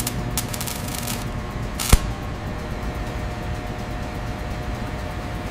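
Steady industrial machinery hum and noise, with crackling in the first second and one sharp metallic clank about two seconds in.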